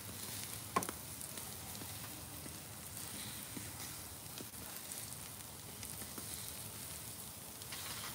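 Pork loin chops sizzling on the grate of a lump-charcoal yakitori grill: a faint, steady hiss, with one short pop about a second in.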